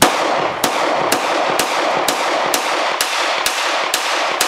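Canadian Inglis No. 1 Mk I* Hi-Power 9mm pistol, shoulder-fired with its holster-stock, firing a steady string of about ten shots, roughly two a second, each report echoing into the next.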